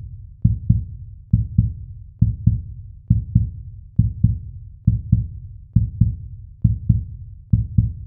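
Heartbeat-style sound effect: low double thumps, lub-dub, repeating evenly a little more than once a second, nine beats in all.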